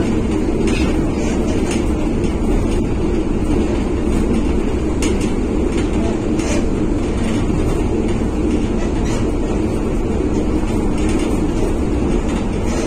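Steady rumble of a 1963 PaFaWag EN57 electric multiple unit running, heard from inside its passenger car, with a few light clicks now and then.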